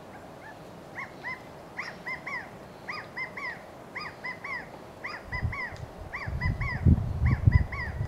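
Male California quail giving its three-note 'chi-ca-go' contact call, repeated about once a second, seven times or so. From about five seconds in, a louder low rumble of wind on the microphone comes in under the calls.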